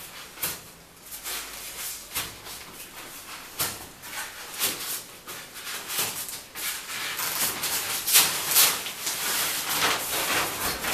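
Nylon fabric rustling and plastic clips and hooks clicking as the fabric second-level insert of a travel cot is unhooked and lifted out. The rustling grows louder near the end as the insert is pulled free.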